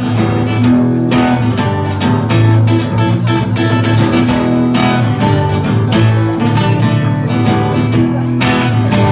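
Instrumental passage of a band song, led by strummed acoustic guitar over a steady beat.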